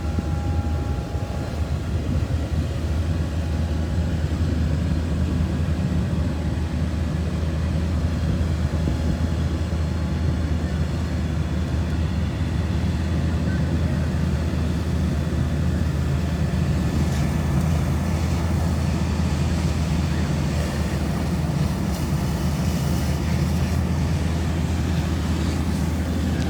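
Fire apparatus engines running at the fire scene, a steady low rumble.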